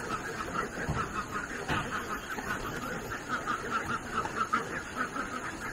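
Animals calling in a dense run of short, quick calls, several a second, overlapping one another.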